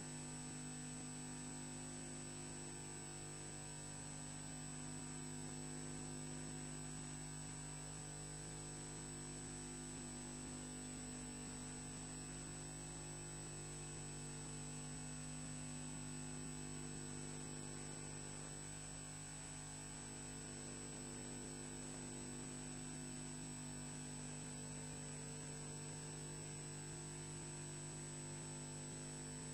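Steady electrical hum with a thin high whine over faint hiss, from the nest webcam's audio line, unchanging throughout; no bird calls are heard.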